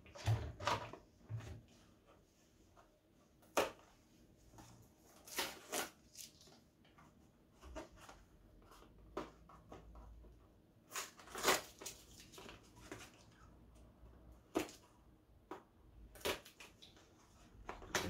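Plastic vacuum parts and cardboard packaging being handled: scattered clicks, knocks and rustles as pieces come out of the stainless-steel drum and a small cardboard box is turned over, with the sharpest knocks coming a few seconds apart.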